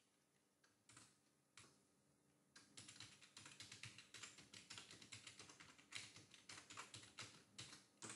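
Faint typing on a computer keyboard: a few scattered keystrokes, then a steady run of quick keystrokes from about two and a half seconds in.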